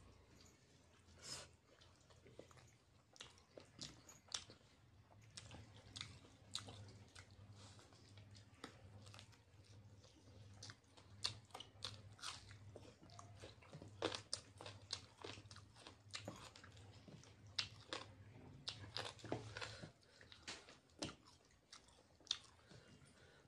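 A man chewing and biting with his mouth close to the microphone as he eats chicken noodles and a fried chicken lollipop by hand: a constant run of short, irregular eating clicks.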